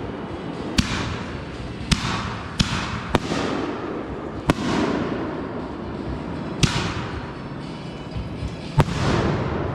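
Consumer fireworks going off in a backyard show: seven sharp bangs at uneven intervals, about one to two seconds apart, each trailing off in a fading hiss.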